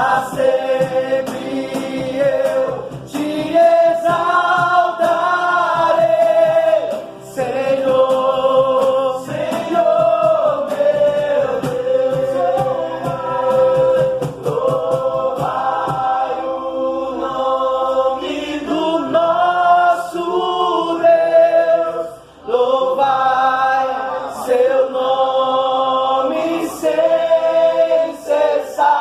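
A group of voices singing a Christian worship song in long held phrases, with short breaths between phrases.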